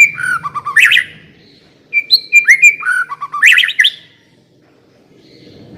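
White-rumped shama singing two similar loud whistled phrases, each a clear note that slides down in pitch, then a quick run of sharp notes. The second phrase starts about two seconds in, and the song stops near the end.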